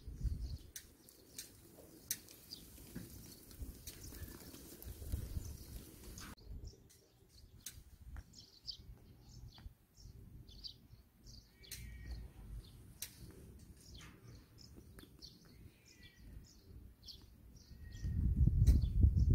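Small birds chirping over and over in short high calls. A low rumble underneath grows loudest near the end.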